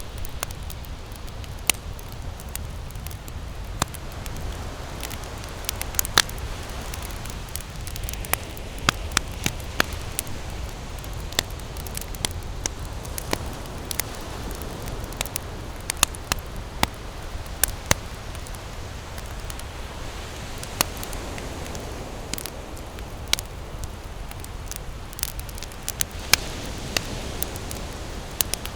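Wood campfire burning, crackling with many sharp, irregular pops over a steady low rumble.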